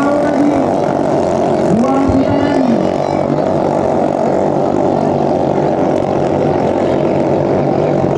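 Racing ketinting longtail boat engines of the 500 cc class running hard in a steady drone, with one engine's note rising and falling back about two seconds in.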